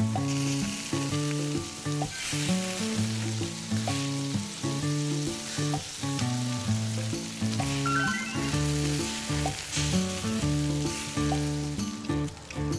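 Meat and leek skewers (kushiyaki) sizzling on a grill, a steady hiss. Background music with held notes and a bass line plays over it.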